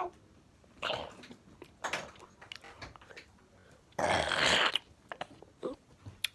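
A person's voice making short growling and grunting noises, with the longest growl about four seconds in and a few light taps between the growls.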